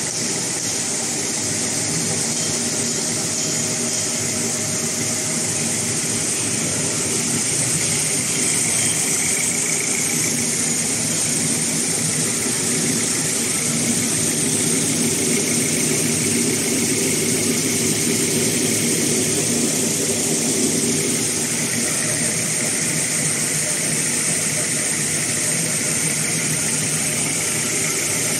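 Toilet-paper and kitchen-towel converting machine running steadily: an even mechanical hum and whir from its motors and turning rollers, with a steady high hiss over it.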